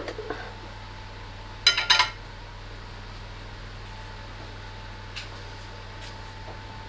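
Small metal tin being prised open: a sharp tap at the start, then a quick cluster of ringing metallic clinks about two seconds in, over a steady low hum.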